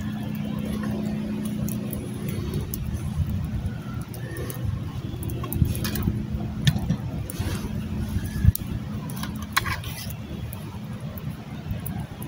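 A motor's steady low hum, with a few sharp clicks and knocks over it, the loudest about eight and a half seconds in.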